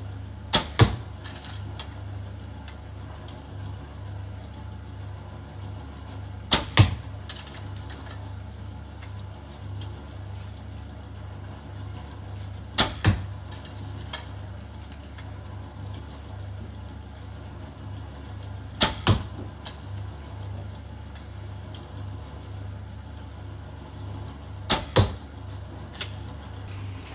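A Dacian-style recurve bow being shot five times, about six seconds apart. Each shot is a pair of sharp snaps a fraction of a second apart, heard over a steady low hum.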